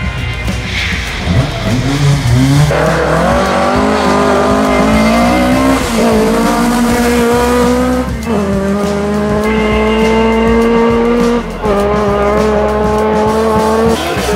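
Rally-prepared Ford Escort Mk2 engine at high revs, its pitch climbing through the gears with short breaks at the gear changes, about eight and eleven and a half seconds in.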